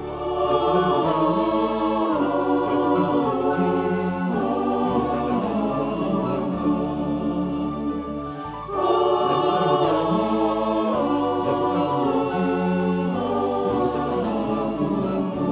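Mixed choir of women and men singing an Indonesian hymn in harmony, a virtual choir assembled from separately recorded singers. The singing comes in suddenly at the start and eases briefly between phrases about halfway through before coming back in fuller.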